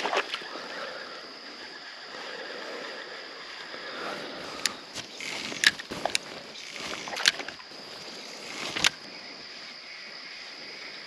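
Steady low wash of river water and outdoor air, with a handful of sharp, short clicks and knocks from handling a spinning rod and reel while casting and retrieving a lure.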